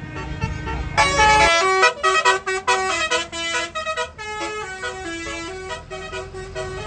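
A tour bus's basuri telolet musical horn plays a quick melody of stepped notes, starting about a second in. A bus engine rumbles under the first moments.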